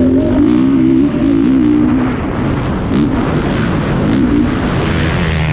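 Motocross bike engine running at high revs, its pitch rising and falling with the throttle, heard up close from a camera mounted on the racing bike or rider.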